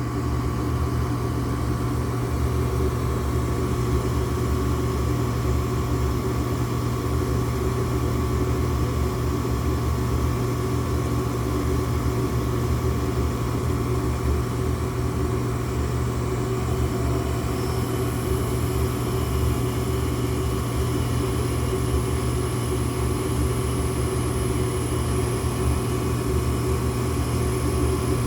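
Weather King gas furnace running with a steady motor hum during an ignition attempt in which the burners fail to light; the owner thinks the gas valve never opens. A faint high whine joins about two-thirds of the way through.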